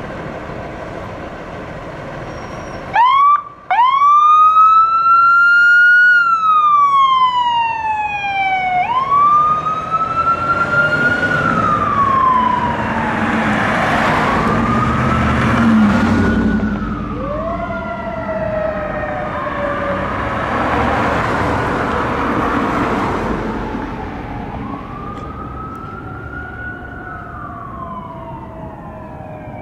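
Fire engine's electronic siren starting up about three seconds in over the truck's engine, then wailing in slow rising and falling sweeps. It grows fainter toward the end as the engine pulls away.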